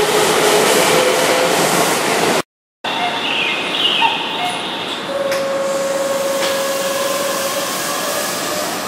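Keihan electric commuter train running at the platform, with a motor whine that rises slowly in pitch. After an abrupt cut, a Keihan 9000 series train stands at the platform amid steady station noise, with a steady hum for a couple of seconds in the middle.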